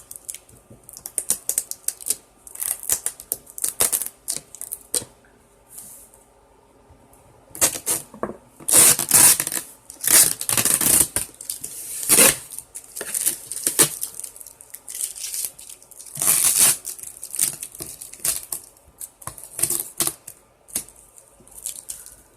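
Packing tape and cardboard on a sealed shipping box being picked at, scraped and torn: a run of clicks and scratches, with several longer ripping sounds about eight, ten and sixteen seconds in.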